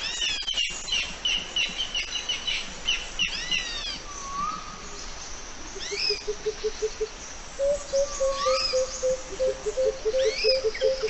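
Wild birds calling outdoors: repeated high, arching chirps. About six seconds in, a low, rapid pulsed call joins them.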